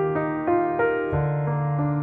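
Piano background music: a melody of evenly spaced notes, about three a second, over a held bass note that shifts to a new pitch about a second in.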